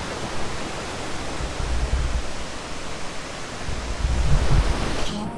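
Waterfall running: a steady rush of falling water, with wind buffeting the microphone in two low rumbling gusts in the middle. Music cuts in at the very end.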